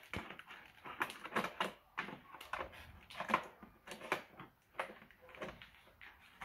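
Irregular clicks and crackles of a plastic toy blaster and its cardboard-and-plastic packaging being handled as it is worked loose from the box, a few sharp clicks a second.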